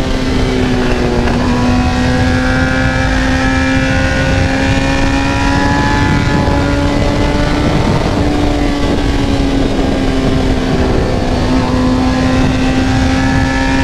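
A 1993 Honda CBR900RR Fireblade's inline-four engine running at steady cruising speed, its pitch holding nearly level with slight rises and dips. Wind rushes over the microphone at road speed.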